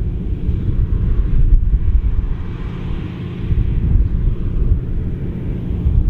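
Massey Ferguson 9380 Delta combine harvester running while it threshes canola: a steady low rumble of its engine and threshing machinery.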